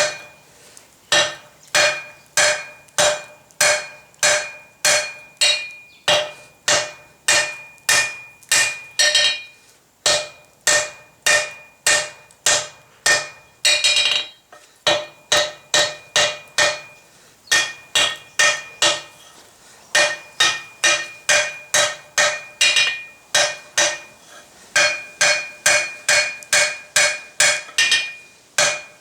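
Hand hammer blows on hot mild steel over an anvil, about two strikes a second in runs with short pauses, each blow leaving a bright ring from the anvil.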